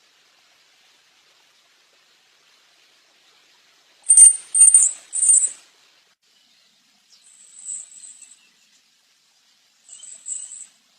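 Ryukyu robin singing: a loud run of three high, ringing notes about four seconds in, then two fainter high phrases later on, with silence between.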